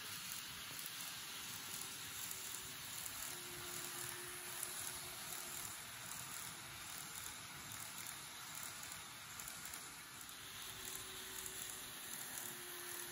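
Model 583 series electric train running along model track: a faint, steady rolling hiss, with a faint hum that comes and goes.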